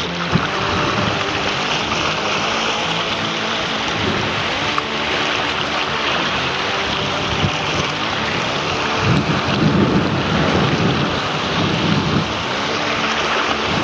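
Strong gusty wind buffeting the microphone over surf washing around the rocks: a dense, steady rushing, with heavier gusts about nine seconds in and again near the end.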